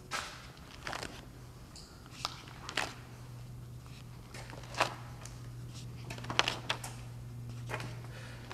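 Paper pages of a spiral-bound sketchbook being turned by hand: scattered short rustles and flicks of paper, over a steady low hum.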